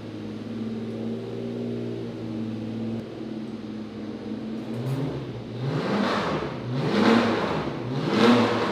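Car engine running steadily, then revved three times in the second half, each rev rising in pitch and loudest near the end.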